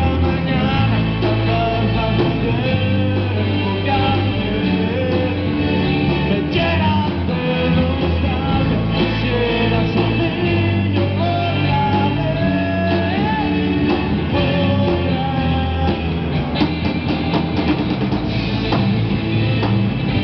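Live rock band playing a song: a male voice singing over electric guitars and a drum kit, played through amplifiers.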